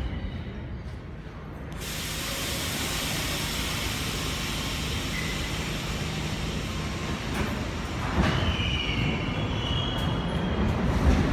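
New York City subway train in an underground station, with a steady running and hissing noise. Wheels squeal from about eight seconds in, and the noise grows louder near the end as the train begins to pull out.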